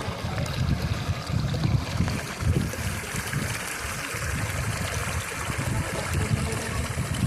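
River water flowing: a steady rush with an uneven low rumble underneath.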